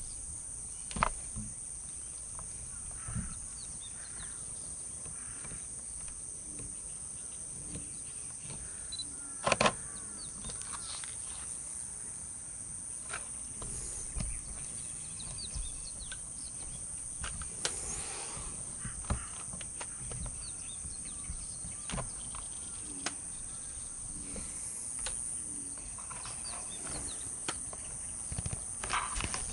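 Outdoor dawn ambience: a steady high insect hum with scattered bird chirps. A few sharp knocks break through, the loudest about ten seconds in.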